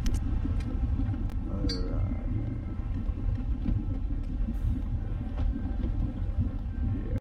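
Steady low rumble with a few faint clicks and knocks, cutting off abruptly at the end.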